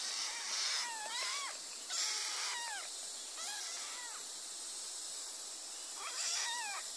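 A young kitten meowing: four separate high-pitched mews, each rising and then falling in pitch, the last near the end, over a steady background hiss.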